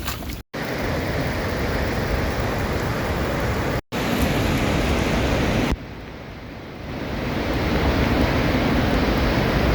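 Steady rushing of a large waterfall on the Genesee River running high after heavy rain. The sound drops out briefly twice, and it is quieter for about a second partway through.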